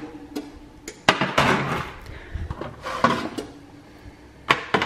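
Metal baking sheets clinking, knocking and scraping against a wire oven rack as trays of cookies are handled at the open oven: a scattered series of sharp clacks with short scrapes between.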